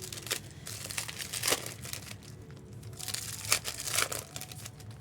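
Trading card pack wrappers crinkling and tearing as packs are opened by hand, in irregular crackles rather than a steady sound.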